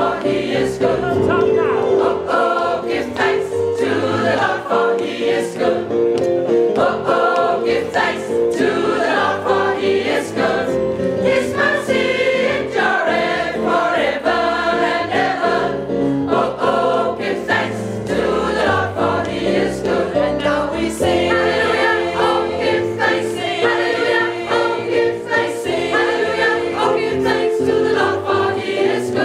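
A large gospel choir of about 37 voices, mostly women, singing an upbeat gospel song, with hand claps on the beat.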